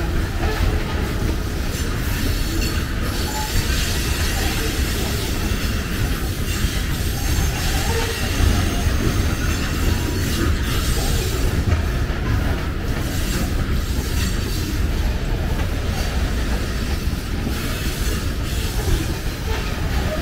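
Covered hopper cars of a freight train rolling past: a steady low rumble of steel wheels on the rails, with irregular clicks and clatter from the wheels and couplers.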